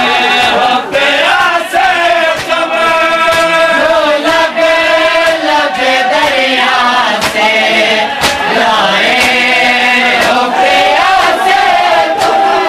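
Men chanting a noha, a Shia mourning lament, in unison, with rhythmic chest-beating (matam) slaps about every three quarters of a second.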